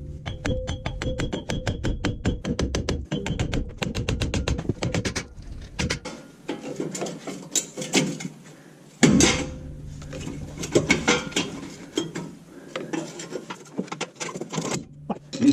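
Rapid metallic clicking and knocking as a wheel hub is worked and pounded loose from the front axle shaft of a Ford F350 Super Duty, with heavy hammer blows about nine seconds in and again at the end.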